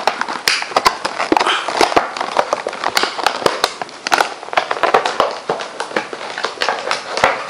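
Plastic and cardboard packaging rustling and crinkling, with many sharp clicks and taps, as a boxed HDMI cable is pulled out of its retail box.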